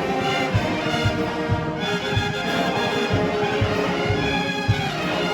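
Marching band playing, brass section carrying the tune over a steady bass-drum beat.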